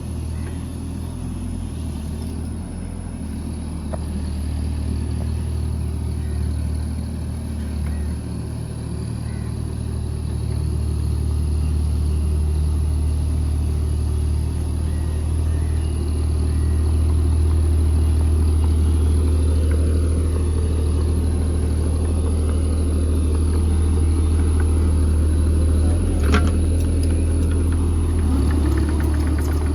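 JCB mini excavator's diesel engine running steadily, growing a little louder partway through as it works, with one sharp knock late on.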